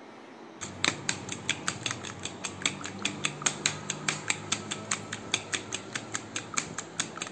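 Metal fork whisking a raw egg in a plastic bowl: fast, even clicks of the fork striking the bowl, about five a second, starting about half a second in.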